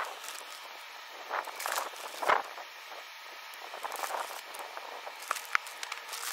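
Fine blast media being poured from a clear plastic bag into a plastic benchtop blast cabinet: the bag crinkles and rustles with a soft hiss of grains. It comes in irregular bursts, with a couple of sharp clicks near the end.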